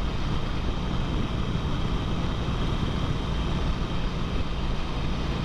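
Harley-Davidson Sportster's air-cooled V-twin engine running steadily at cruising speed, mixed with wind rushing past, as heard from the rider's seat.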